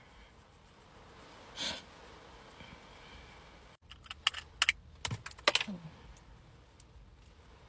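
A brief rustle about two seconds in, then about four seconds in a quick run of sharp plastic clicks and clatters lasting about a second and a half: a small round makeup container being handled and its lid worked, over a faint car-interior hush.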